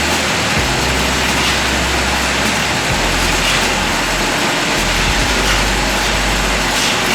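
A heavy engine running steadily under a loud, even rushing noise; its low hum shifts pitch a few times.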